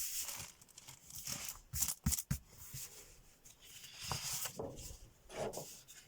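Sheets of thick scrapbooking paper rustling and sliding as they are turned over and handled, in several soft swishes with a few sharp clicks about two seconds in.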